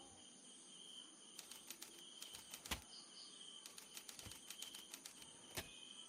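Near silence with faint insects chirping in a steady trill, and scattered light clicks through the middle.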